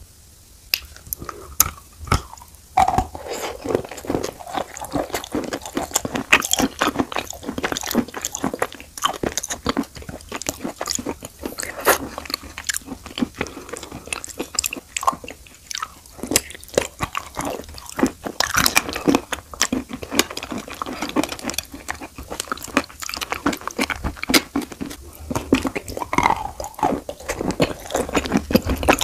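Close-miked crunching and chewing of a long stick of chalk coated in wet Uzbek blue clay: dense, crisp crunches as pieces are bitten off and chewed, without pause.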